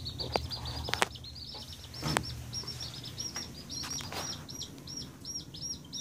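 A brood of Gold Sex Link chicks peeping continuously, many short high cheeps a second overlapping one another. A few sharp knocks come in among them, the loudest about one and two seconds in.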